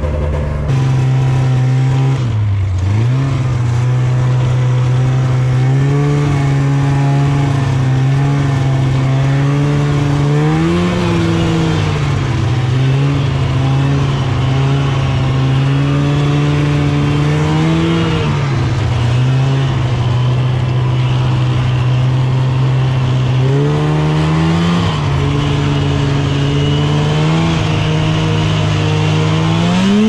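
1998 Polaris Indy 500 Classic snowmobile's two-stroke twin engine running under way. Its pitch swells and falls back several times as the throttle is opened and eased, with a short dip and recovery about two seconds in.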